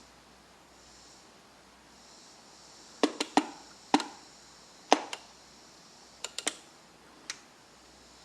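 Front-panel controls of a Hallicrafters SX-100 shortwave receiver being worked, giving about ten sharp clicks in small groups starting about three seconds in, like switches snapping and a selector clicking through its detents.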